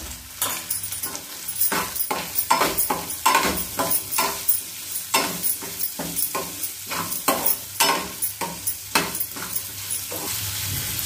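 Metal spatula scraping and knocking against a kadhai, about two or three strokes a second, as onions, green chillies and garlic are stir-fried in sizzling oil. The strokes stop about ten seconds in, leaving the steady frying sizzle.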